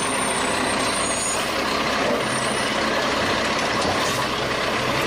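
Garbage truck sound effect: a truck's engine and machinery running steadily, with a faint high squeal in the first second or so.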